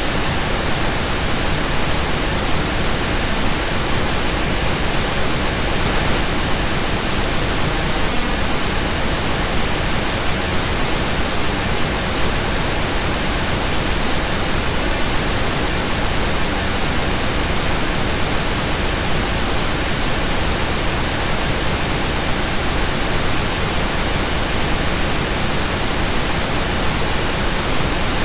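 Steady, even hiss of synthesized pink-type noise from a relaxation 'healing frequency' soundtrack, with faint high tones pulsing on and off about every two seconds and a higher tone drawn out now and then.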